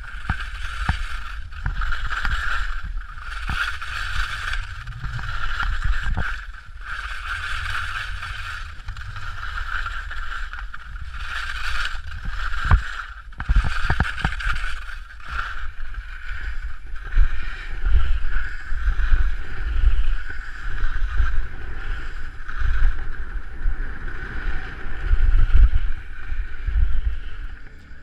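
Wind buffeting a skier's helmet-mounted camera microphone over the hiss and scrape of skis on snow during a downhill run, with a steady hiss throughout.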